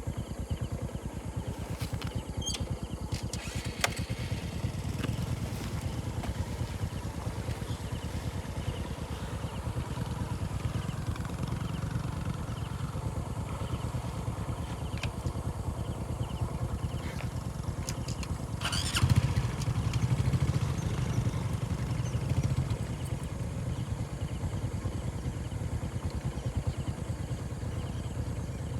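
Small motorcycle engine running steadily while riding. There are a few sharp clicks early on, and a louder burst of noise about two-thirds of the way through.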